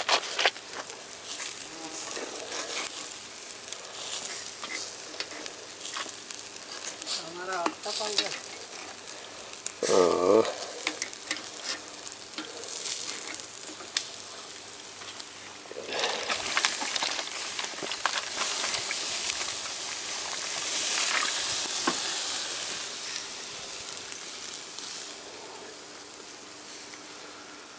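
Meat or fish sizzling and crackling over hot charcoal, with a stronger hiss swelling for several seconds past the middle.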